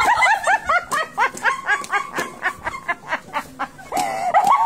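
High-pitched laughter in quick, repeated bursts, each one rising and falling in pitch, from a woman cracking up.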